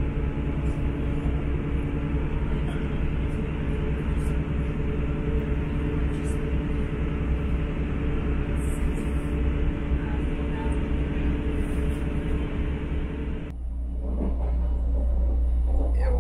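Class 159 diesel multiple unit heard from inside the passenger coach at speed: a steady rumble of wheels on rail with a constant low drone from underneath. Near the end the sound cuts suddenly to a deeper, muffled low rumble, heard from inside the train's small toilet compartment.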